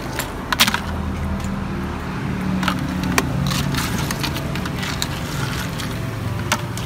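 Plastic scoop clicking and clattering as it digs ice out of a cooler, with a few sharper knocks, over a steady low engine hum from street traffic.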